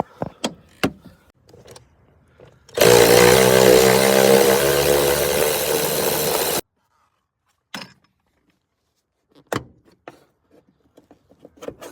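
Power drill/driver with a T50 Torx bit running hard for about four seconds, backing out a seat belt anchor bolt; it starts and stops abruptly. A few light clicks and knocks of handling before and after.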